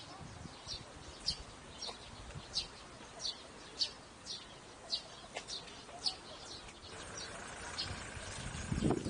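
A small bird calling over and over, single short high chirps about every half second to second.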